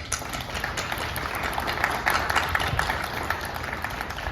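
Audience applauding with many hand claps, swelling about two seconds in and easing off near the end.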